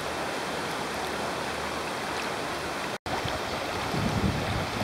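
Steady rush of flowing floodwater in a street. It breaks off sharply about three seconds in, then returns, with wind buffeting the microphone in low gusts near the end.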